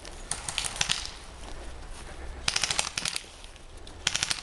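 Airsoft guns firing full-auto, three rapid bursts of sharp clicking shots, the last starting near the end.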